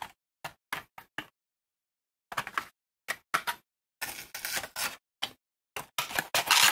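Clear plastic packaging tray being handled, clicking and crinkling. There is a string of short clicks, then longer crackling runs about four seconds in and again near the end.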